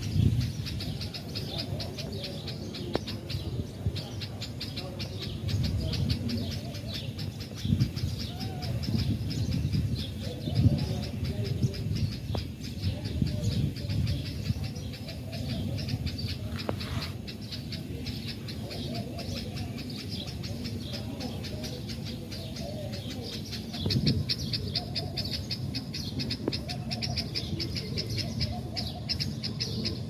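Outdoor birdsong: low, wavering cooing or hooting calls repeat through a steady, rapid high-pitched chirring, over a low rumble.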